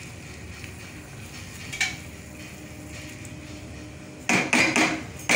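Soaked red lentils tipped from a bowl into a metal cooking pot, with a single knock about two seconds in and a burst of clattering knocks against the pot near the end.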